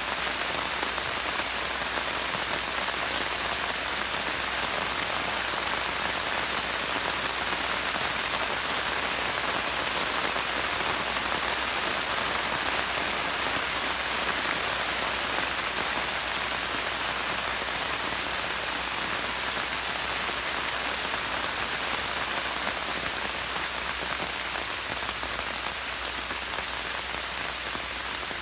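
Steady rain falling, an even patter of drops with no letup.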